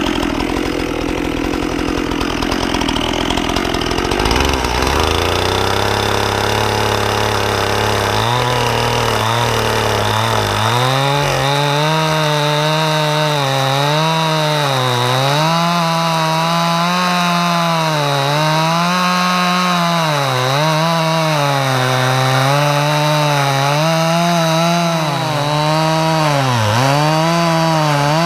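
Stihl MS 261 C-M two-stroke chainsaw running. Its pitch steps up over the first several seconds to a high rev, then it cuts into a log, the pitch sagging and recovering every second or two as the chain bites into the wood.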